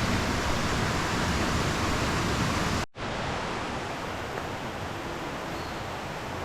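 Steady rush of flowing river water. About three seconds in it cuts out for an instant and comes back a little softer.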